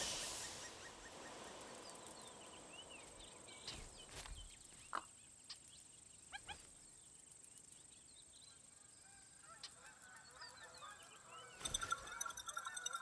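Quiet stretch with a few faint clicks and short chirps, then near the end a flock of geese breaks into rapid, repeated honking.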